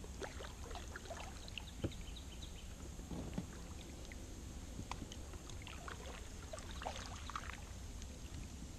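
Kayak paddle strokes: a double-bladed paddle dipping into the water, with scattered small splashes, drips and light knocks. A steady low rumble runs under them.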